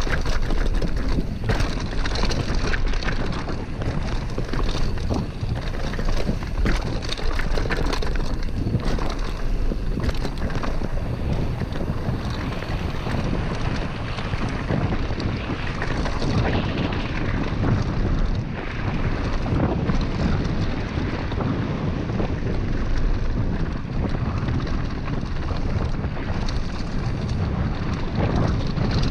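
Wind blasting over an action camera's microphone on a mountain bike descending a dirt trail at speed, with the rush of tyres on dirt and gravel and frequent knocks and rattles of the bike over rough ground, most of them in the first half.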